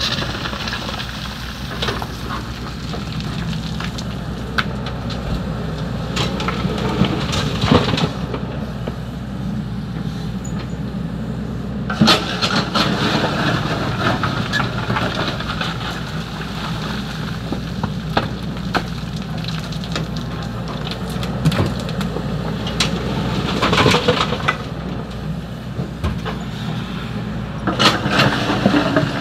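XCMG 75 excavator's diesel engine running steadily while it loads sand and gravel. Louder rattling bursts of the bucket digging and dumping gravel come about halfway through and twice near the end.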